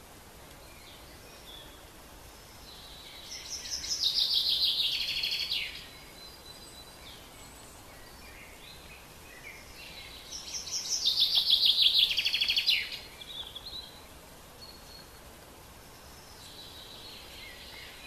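Birdsong over a faint steady outdoor hiss. Two loud songs of rapid repeated high notes come about four seconds and about eleven seconds in, each lasting two to three seconds, with fainter chirps between them.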